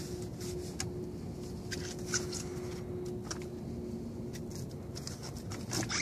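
Scattered small clicks, knocks and rustles of handling and movement on a boat, over a faint steady hum.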